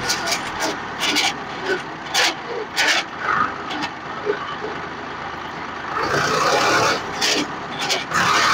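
Swaraj 735 FE tractor's three-cylinder diesel running, with a series of irregular sharp knocks and rattles from the machine, a denser stretch of noise about six seconds in.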